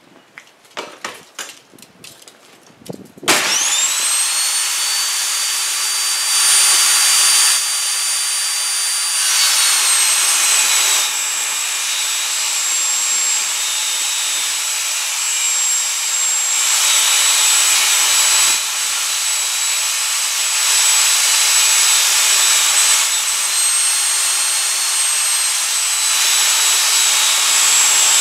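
A few light clicks and knocks, then the WEN 3720 10-inch table saw's 15-amp motor switches on about three seconds in. It spins up quickly to a steady high whine and keeps running while a board is ripped lengthwise through the blade. The cutting noise swells and eases several times as the wood is fed.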